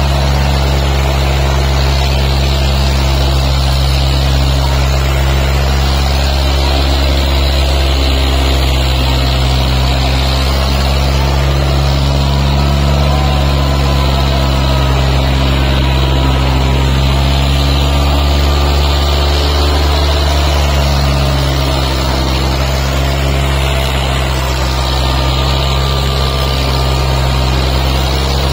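Diesel engines of a Kubota tractor and a second tractor running hard at high throttle in a tractor tug-of-war. It is a loud, steady engine drone with little change.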